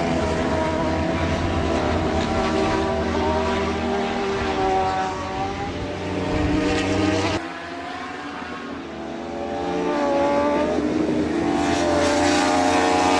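Racing motorcycle engines at high revs, their pitch rising and falling as the bikes accelerate and shift. The sound cuts abruptly about seven seconds in to a quieter stretch, then builds again.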